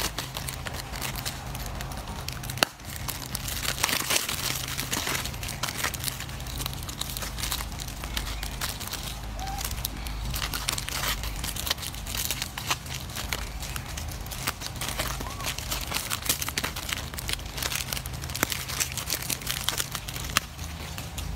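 Plastic snack-cake wrappers crinkling and rustling as macaques grab and handle them, a dense run of small crackles with one sharper click about two and a half seconds in.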